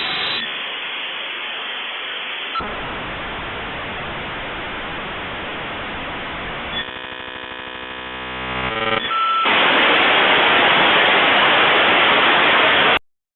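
56k dial-up modem handshake: a steady hiss of line-training noise with a buzzy, comb-like stretch partway through. A louder hiss follows for the last few seconds and cuts off suddenly as the handshake ends.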